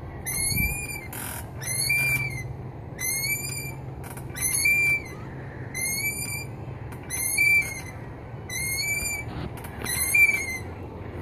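Playground chain swings squeaking rhythmically as they swing, a high rising-and-falling squeal about once a second.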